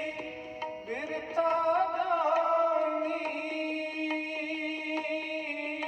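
Music: sustained melodic lines over a steady drone, with a wavering, sliding melody and light regular percussion taps.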